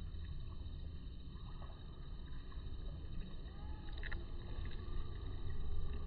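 Steady low rumble of outdoor background noise, with a few faint short chirps and a faint click about four seconds in; the kingfisher itself is silent.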